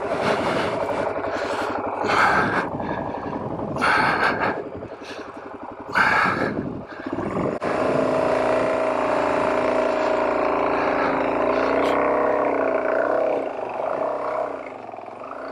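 Suzuki DR-Z400S single-cylinder four-stroke engine revved in short bursts as the bike pulls away through loose volcanic sand. It then runs at a steady pitch from about seven and a half seconds in.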